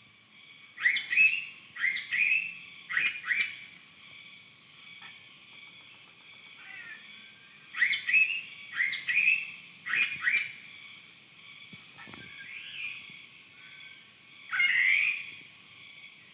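A bird calling in three groups of short, sharp rising chirps, one a few seconds after another, over a steady high background drone.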